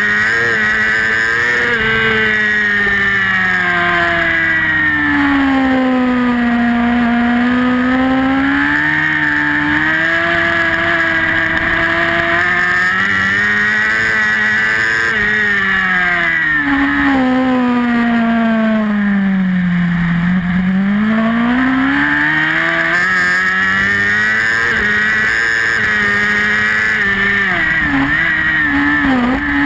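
A racing superbike's engine heard onboard at race pace, pulling hard. Its pitch sinks twice as the bike slows for corners and climbs again each time it drives out, with a few quick up-and-down changes near the end.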